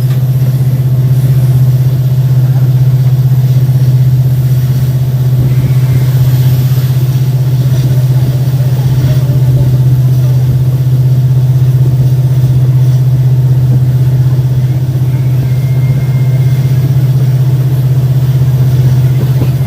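Diesel locomotive engine of an Indian Railways WDP4D, an EMD 16-cylinder two-stroke, running steadily under power, heard from the train behind it as a deep, loud, constant hum with train running noise.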